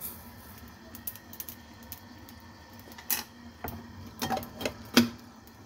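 Several sharp clinks and taps of utensils against a small metal saucepan of soup on a gas stove, scattered through the second half, the loudest about five seconds in with a short ring. A faint steady hiss runs underneath.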